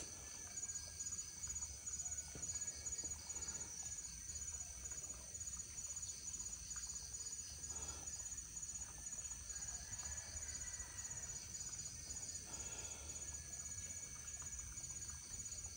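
Insects chirping in a steady, high-pitched, pulsing chorus.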